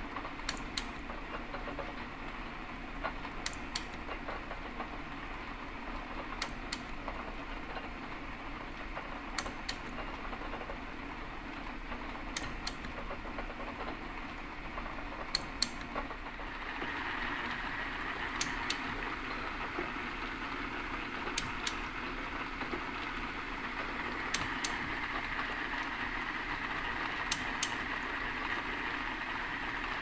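Metal shaper running a power-fed cut across a flame-cut steel edge: steady machine running with a sharp pair of clicks about every three seconds, once per stroke of the ram. About halfway the running sound grows louder and brighter.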